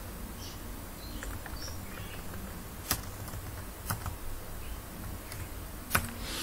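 Scattered key presses on a computer keyboard: a few sharp taps about a second apart and some fainter ones, over a low steady hum.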